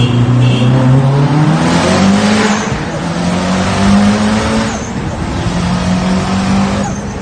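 Mitsubishi Lancer Evolution VII RS's turbocharged four-cylinder engine pulling hard under acceleration, its revs climbing and then dropping with three upshifts: about two and a half seconds in, about five seconds in, and near the end.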